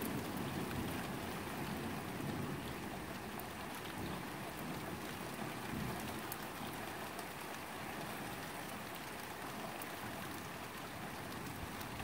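Steady rain falling: an even hiss of rain with scattered ticks of drops striking nearby surfaces.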